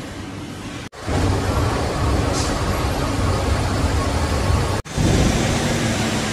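City background noise dominated by a low, steady road-traffic rumble, cutting off abruptly twice as one recording gives way to the next. A quieter hall ambience comes before the first cut.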